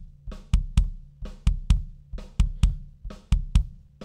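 Recorded 22-inch Tama kick drum played back through a mixing console, in a repeating pattern of three quick beats about once a second. It is being EQ'd with deep cuts around 330 Hz and 1.7 kHz to take out low-end honkiness and a harsh ring near 1 kHz, leaving it cleaned up a bit.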